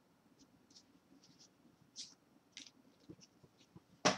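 Topps baseball cards handled and flipped through by hand: a scattering of soft, short swishes of card sliding against card, with one sharp click about four seconds in.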